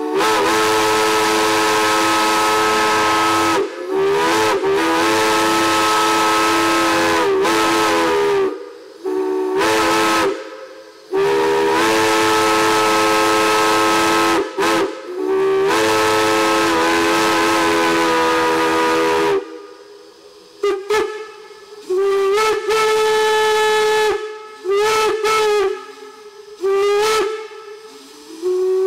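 Steam whistle on a stand, fed with steam from a steam locomotive, blown in a series of long and short blasts with several notes sounding together over a steam hiss. In the last third it gives shorter toots on a single higher note, each sliding up in pitch at its start.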